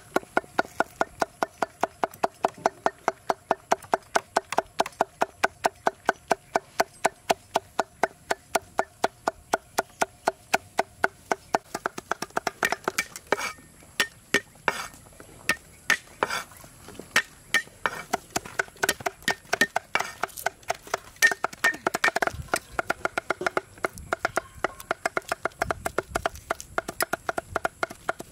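Cleaver chopping on a wooden chopping block: fast, even strokes about three or four a second, each with a short metallic ring, first through red chillies. After about twelve seconds the chopping becomes irregular, with the cleaver working on garlic.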